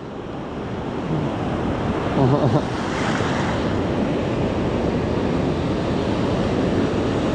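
Ocean surf breaking and washing up the beach, swelling over the first few seconds and then holding steady, with wind on the microphone.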